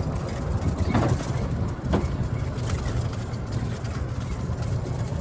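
Steady low rumble of a car on the move, engine and road noise, with a couple of faint short sounds about one and two seconds in.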